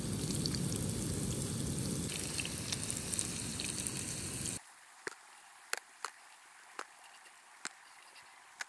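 Breaded trout nuggets sizzling in hot canola oil in a small frying pan heard close up, a dense hiss with fine crackles. About four and a half seconds in it cuts off suddenly to a much quieter background broken by scattered sharp clicks.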